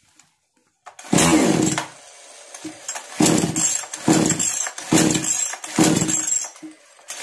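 Kisan Kraft KK-CSP-6522 two-stroke chainsaw engine being worked at with repeated start attempts, five bursts of engine sound about a second apart, each falling away, beginning about a second in.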